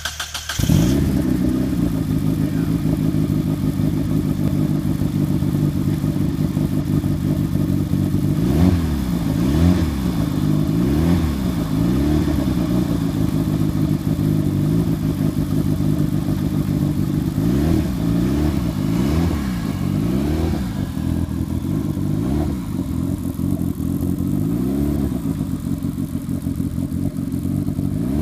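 Turbocharged Mazda Miata four-cylinder engine catching about half a second in, then idling. Three spells of quick throttle blips rev it up and let it fall back.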